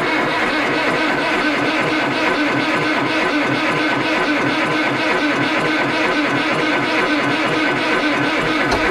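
Four-cylinder Perkins diesel of a Landini 8880 tractor running steadily on a cold start at −2 °C without preheating, heard from inside the cab.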